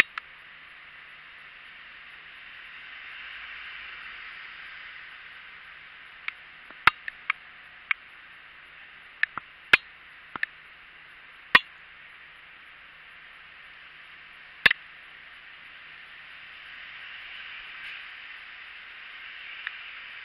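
Steady hiss of traffic on a wet street, swelling twice as vehicles go by, with about a dozen sharp, loud clicks close to the microphone between about six and fifteen seconds in.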